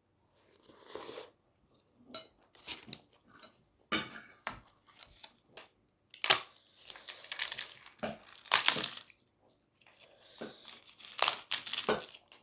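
Close-up crunching and chewing of crisp roasted papad, in irregular bursts of crackling bites.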